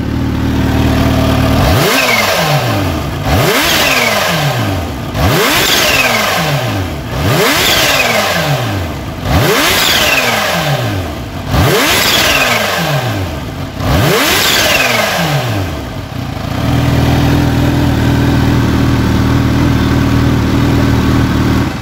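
Kawasaki Ninja H2's supercharged 998 cc inline-four idling, then blipped hard about seven times, roughly every two seconds, toward about 10,000 rpm. Each rev drops back quickly with a high supercharger whine falling away after it, and the engine settles back to a steady idle about 16 seconds in.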